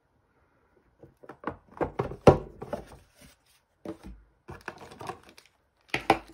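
A storage box of alcohol inks being opened and its contents handled. A run of knocks, taps and clicks starts about a second in, with the loudest knock a little after two seconds and more clusters later.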